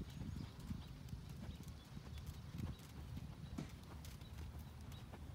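Horse's hooves striking soft sand arena footing as it moves around on the lunge line: a string of dull, muffled thuds.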